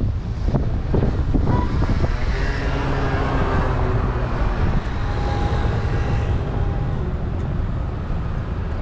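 Street traffic: a vehicle passes, its engine hum swelling and fading over a few seconds over a steady low rumble.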